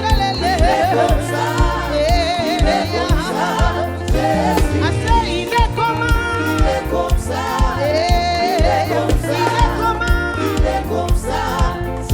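Gospel praise-and-worship music: singers holding wavering, sustained notes over a band with bass and a steady drum beat.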